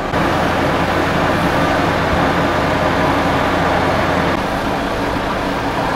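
Engine of a mobile boat hoist (travel lift) running steadily while it holds a sailboat in its slings; its deepest hum drops away about four seconds in.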